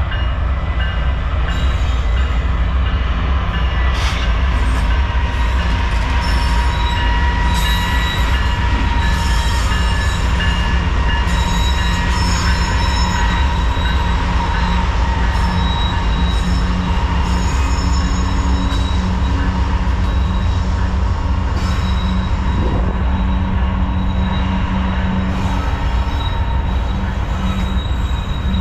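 Freight train of tank cars rolling past close by: a steady heavy rumble with wheels squealing in thin high tones, and an occasional sharp click from the wheels on the rail.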